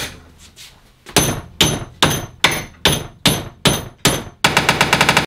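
Hammer blows striking a TPU 3D-printed benchy clamped in a steel bench vise: about eight sharp, ringing strikes roughly two and a half a second, then a fast flurry of quicker blows near the end.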